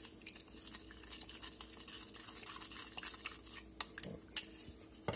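A white plastic spoon stirring a thin sauce in a plastic measuring cup: faint, irregular clicking and scraping of spoon against cup, with a sharper click near the end.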